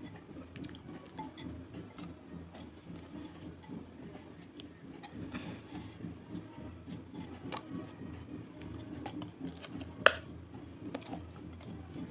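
Close-miked chewing and crunching of hard, brittle pieces in the mouth: many small clicks and crackles, with one sharper crack about ten seconds in, over a low steady hum.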